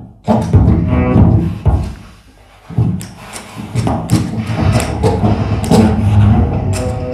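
Saxophone and percussion duo playing contemporary concert music: a loud, dense low-pitched entry, a brief drop in level around two seconds, then repeated sharp percussive strikes over sustained low tones.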